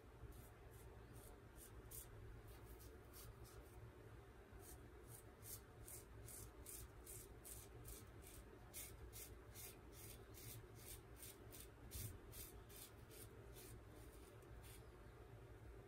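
Gem Micromatic single-edge safety razor scraping stubble off the neck through lather, in short strokes about two a second, coming closest together in the middle.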